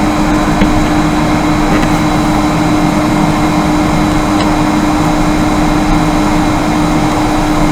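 Electric blower fan running steadily, a constant rush of air with a steady low hum.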